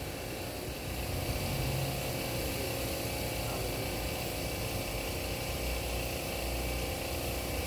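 Steady low rumble with a faint hum, no one speaking.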